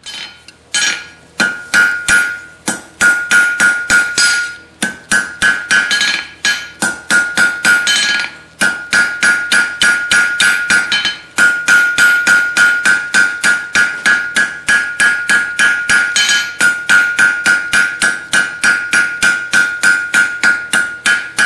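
Hand hammer striking red-hot 3/8-inch round steel bar on an anvil face, about three blows a second with a few brief pauses, the anvil ringing with each blow: drawing the split ends out into points.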